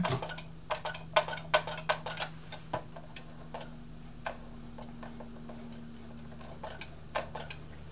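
Irregular plastic clicks and taps as a sewing machine foot controller is squeezed by hand over and over, quick at first and then only now and then, over a faint steady hum. The Bernina 1000's motor does not run up, a sign of a fault in the motor, the foot controller or its capacitor.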